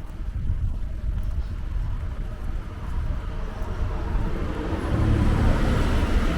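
A car driving past, its engine and tyre noise growing louder toward the end and then falling away quickly.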